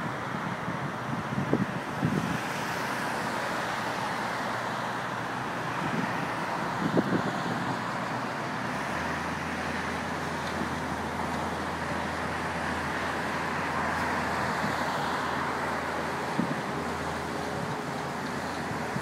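Steady city road traffic, with a few brief thuds about two and seven seconds in. A low steady hum comes in about halfway through, while a Siemens Avenio tram runs along the viaduct overhead, and fades near the end.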